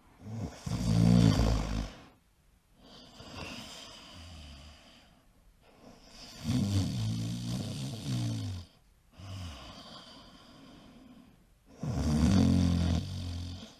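A man snoring: three loud snores, each about two seconds long and coming roughly every five and a half seconds, with quieter breathing between them.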